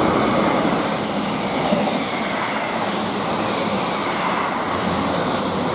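South Western Railway Class 159 diesel multiple unit passing close by at speed: a loud, steady rush of wheels on rail and train noise.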